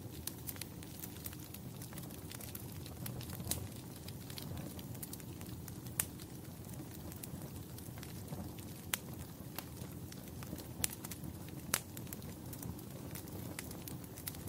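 Wood fire crackling in a fireplace: a steady low rush of burning with constant small snaps and a handful of sharper, louder pops scattered through.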